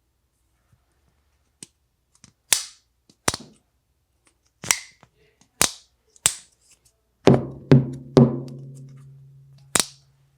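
Folding knives being flicked open and snapped shut: a series of sharp, separate clicks about a second apart. About two thirds of the way in come three heavier knocks in quick succession, leaving a low ringing tone that slowly fades.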